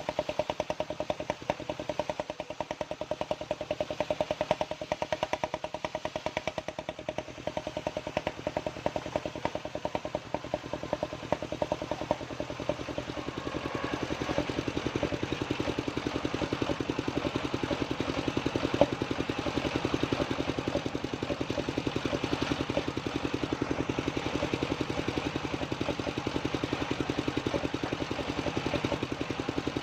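Engine-driven homemade sawmill running steadily with a rapid, even engine pulse. About halfway through the sound turns noisier and fuller.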